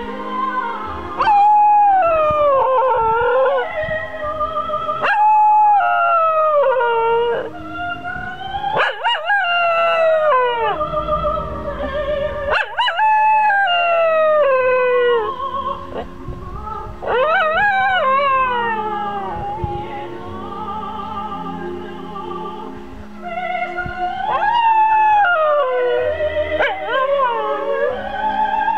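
Cocker spaniel howling, or "singing", in long wavering notes that mostly slide downward, in phrases with short breaks, along with music playing.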